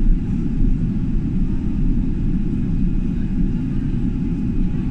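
Steady low rumble inside the cabin of an airliner taxiing across the airfield.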